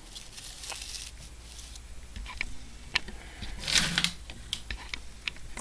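Scattered light clicks and taps of small metal lock parts being handled and moved about, with a short rustle a little past the middle.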